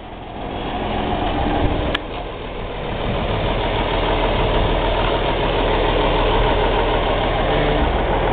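Diesel engine of a wheel loader running steadily at close range, with a single sharp click about two seconds in.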